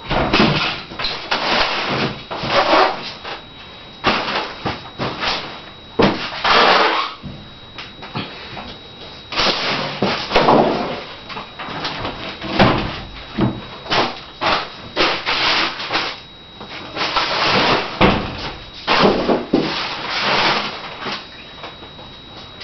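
Irregular bursts of scraping, rustling and knocking as things are handled, each lasting a second or so with short gaps between.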